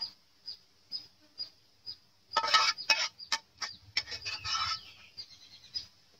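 Metal spoon scraping and clinking in a wok as stir-fried beef and vegetables are scooped out onto a plate, in two short bursts. Behind it, a faint high chirp repeats about twice a second.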